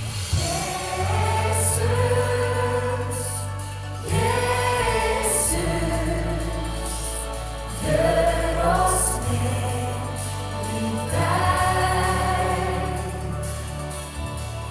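Christian worship song in gospel style: a woman's lead voice with a choir over held bass notes, in sung phrases that start about every four seconds.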